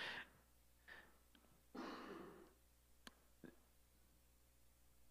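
A man breathing and sighing into a handheld microphone as his laugh dies down, with a long exhale about two seconds in and a small mouth click a second later.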